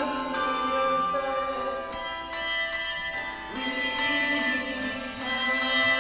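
Handbells playing a melody: bells struck one after another, each note ringing on and overlapping the next.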